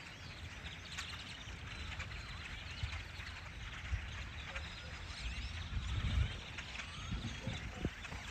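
Dense chatter of a huge flock of birds: countless overlapping chirps and short whistles with no break, over a low rumble that swells about six seconds in.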